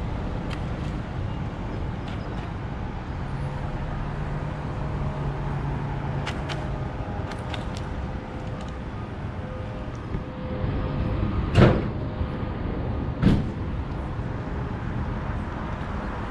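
Street traffic running steadily, with two loud sharp thumps about a second and a half apart, roughly two thirds of the way through.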